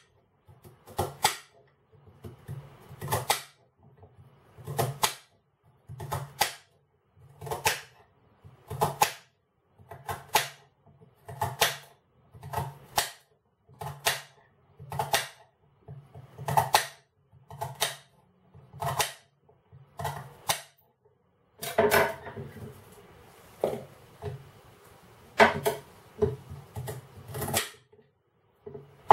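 Kitchen knife chopping celery on a glass chopping board: sharp double knocks of the blade on the board, about one every second or so, a little louder and busier near the end.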